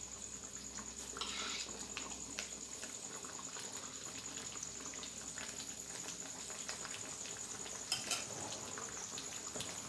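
Chicken curry simmering in a wok, a steady soft bubbling noise, with a couple of light clicks about eight seconds in. A steady high-pitched tone sits over it.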